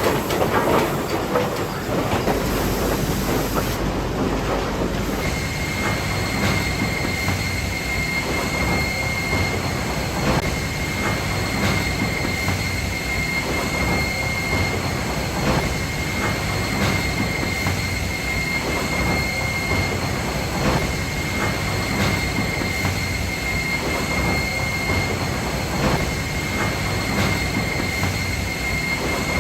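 Sawmill board-handling machinery running: chain conveyors carrying freshly sawn boards, with repeated knocks and clatter of wood on steel. A steady high whine comes in about five seconds in.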